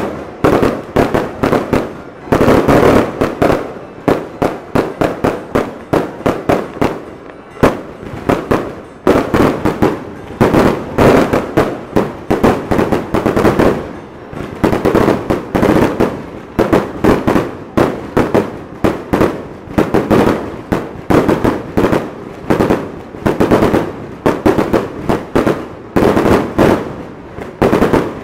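Aerial fireworks display: a dense, unbroken string of shell bursts going off overhead, several loud bangs a second, without a pause.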